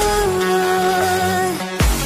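Electronic pop music: a held synth melody line that slides down in pitch and drops out, followed near the end by a sharp hit with heavy bass.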